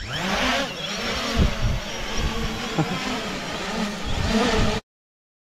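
Small quadcopter drone taking off, its propellers whirring and rising in pitch at the start, with wind buffeting the microphone. The sound cuts off suddenly near the end.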